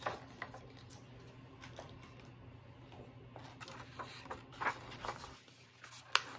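Handling of a clear plastic sticker sheet: faint rustling and crinkling with a few light clicks and scrapes as a sticker is worked loose with a craft tool, the sharpest tick near the end, over a faint low hum.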